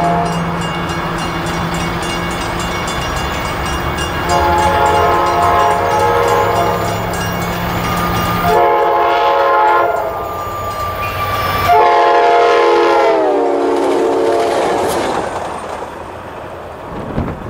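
Train horn blowing in the grade-crossing pattern, long, long, short, long, several notes sounding together; the last blast slides down in pitch as it fades.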